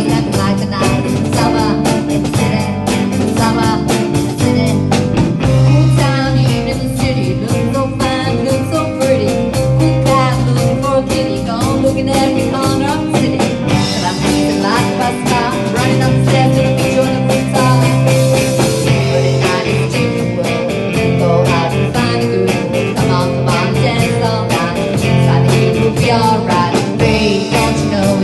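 Live rock band playing: electric guitar, bass guitar, drum kit and keyboard, with a steady drum beat, in a stretch with no words picked out.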